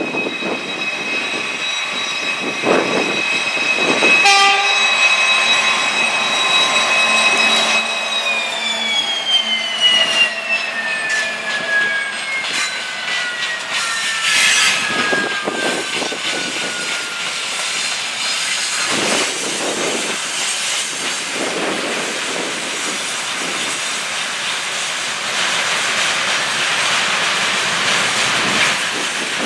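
2TE116 twin-section diesel locomotive hauling a freight train. A high-pitched whine holds steady for about eight seconds, then slides steadily down in pitch over the next ten seconds, and the train's rolling noise with scattered knocks carries on after it.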